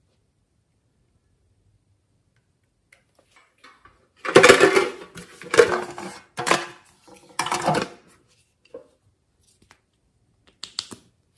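Hard plastic box handled close to the microphone: a run of clattering knocks and scrapes from about four to eight seconds in, then a couple of small clicks near the end as the cap of a glitter glue tube is worked.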